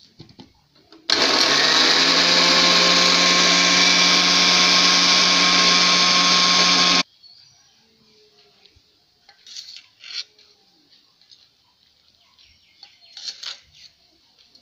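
Electric blender (mixer grinder) motor running at a steady speed for about six seconds, switching on and off abruptly, grinding jackfruit seeds for jak toffee. Faint utensil clinks follow.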